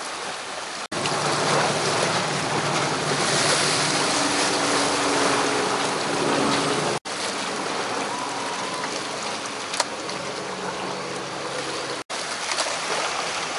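Seawater surging and washing against rocks with a steady hiss, under the low drone of a passing boat's engine. The sound drops out for an instant about a second in, about seven seconds in and near the end.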